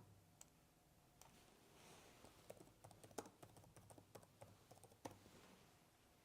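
Faint computer keyboard typing: a loose run of soft key clicks from about two seconds in to just after five seconds.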